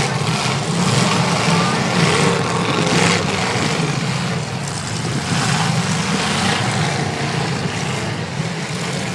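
Several demolition derby cars' engines running loudly at once, with a few brief crashes as cars hit each other.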